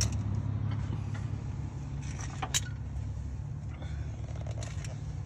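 Honda CR-V running with a steady low rumble while towing a car on straps, with light rattles and one sharp click about two and a half seconds in.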